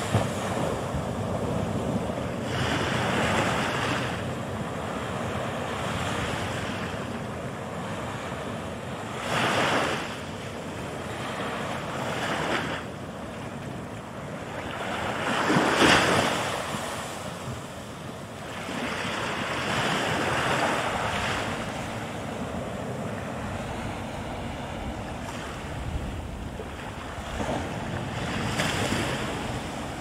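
Ocean surf breaking and washing in: a continuous hiss of water that swells with each wave every few seconds, the strongest surge about halfway through.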